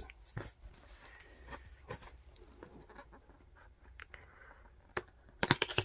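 Fingers handling a thick cardboard board-book page and its lift-flap: light scratching and scattered taps, then a quick run of sharper, louder clicks near the end as the flap is worked.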